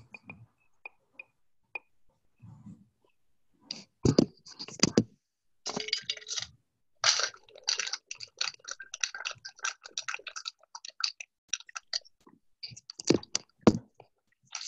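A rapid, irregular run of clicks, taps and knocks, starting sparse and faint, then growing dense from about four seconds in, with heavier thumps around four to five seconds and again near the end.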